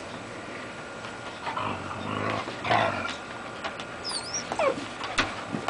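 Two dogs, a Siberian husky puppy and a small black-and-tan dog, play-fighting, with rough growling in a few short bursts.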